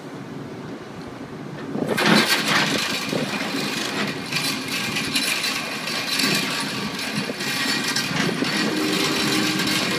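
Excavator-mounted hydraulic pile driver starting up about two seconds in with a loud, fast rattling buzz as it drives a wooden piling, over the excavator's running engine.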